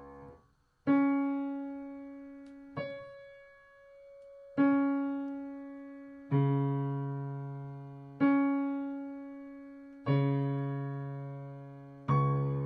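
Electronic keyboard playing slow sustained chords, seven in all, struck about every two seconds and each left to ring and fade; the second is softer than the rest.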